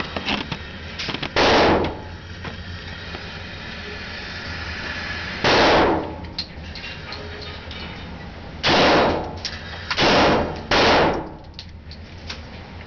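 Five gunshots, each a loud blast that briefly overloads the microphone and rings on for about half a second: one about a second in, one near the middle, then three close together near the end.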